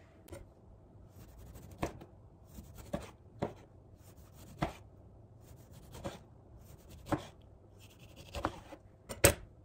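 Chef's knife slicing cucumber and tomato on a plastic cutting board. Each stroke ends in a short knock of the blade on the board, about ten unevenly spaced knocks.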